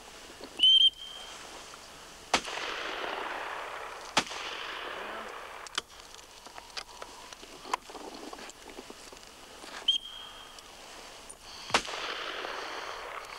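Shotgun shots at clay pigeons: two sharp reports a couple of seconds apart a few seconds in and another near the end, each with an echoing tail, with fainter cracks between. A short high beep sounds near the start and again later.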